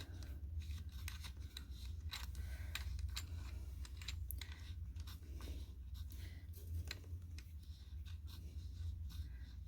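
Faint, irregular small clicks and scratches of a wheelchair power-cable connector being handled and pushed into its socket, over a steady low hum.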